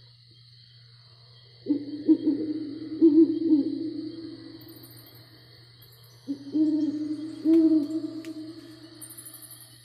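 Owl hooting sound effect from a Halloween spook house decoration: two bouts of several wavering hoots, each lasting two to three seconds, over a steady low hum.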